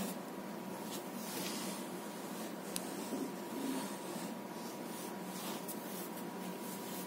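Faint rustling and scratching of hands, cotton thread and a metal crochet hook moving over paper, with a sharp tick nearly three seconds in, over a steady background hiss. A brief bump sounds right at the start.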